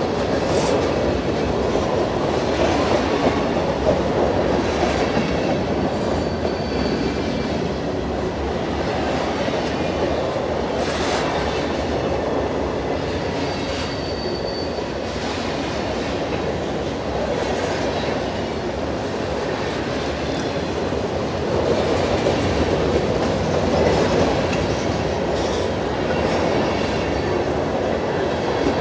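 Freight train of covered hopper cars rolling past at close range: steady rumble and clatter of steel wheels on the rails. A couple of brief, faint wheel squeals.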